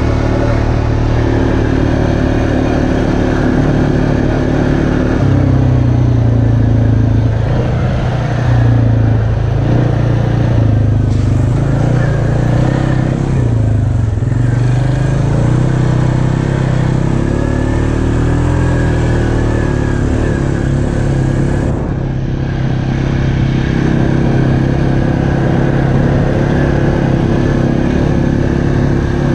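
Single-cylinder ATV engine running under way on a dirt trail. The note rises and falls with the throttle through the middle, then settles into a steady cruise.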